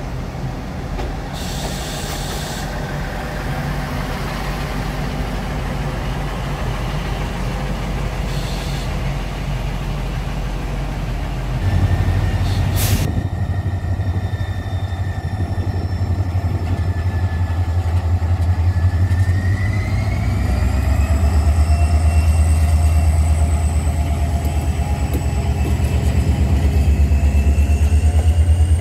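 A diesel railcar train running past the platform with a steady engine rumble. About halfway through, a diesel locomotive hauling passenger coaches comes close and its engine drone becomes the loudest sound. A whine from it rises in pitch partway through.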